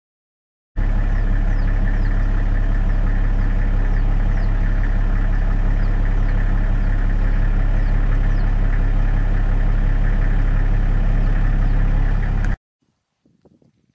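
A steady, loud, engine-like idling drone with a deep hum that starts abruptly about a second in and cuts off suddenly near the end. Faint short high chirps fall in pitch about once a second over it.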